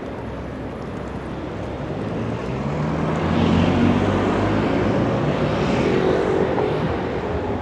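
Street traffic passing close: a small car drives by, loudest about halfway through, then a motor scooter passes with a higher engine note.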